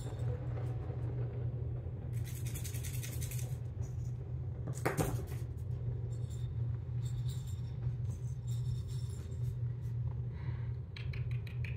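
Steady low hum of a small room. Over it, a quick rattle a couple of seconds in, a single sharp knock about five seconds in, and a few light clicks near the end, from kittens moving about among their toys.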